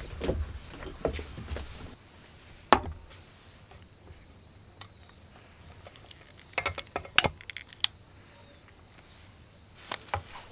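Steady high insect chirring, with a few sharp clicks and clinks of metal and glass as a hurricane oil lantern is handled, the loudest a single click a few seconds in and a quick cluster about two-thirds of the way through.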